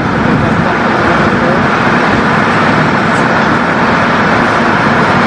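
Steady, loud rumble of running engines and road traffic, with no single event standing out.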